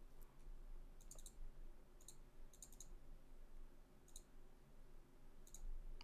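A handful of faint computer mouse clicks, some single and some in quick double-click clusters, spread over a few seconds above a faint low hum.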